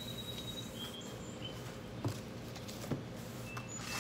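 Outdoor ambience: birds giving short, high chirps over a steady background hum, with two light knocks near the middle.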